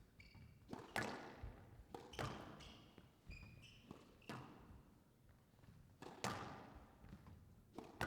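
Squash rally: the ball cracks off rackets and the court walls with hard, echoing knocks one to two seconds apart, and court shoes squeak briefly on the wooden floor near the start and again about three and a half seconds in.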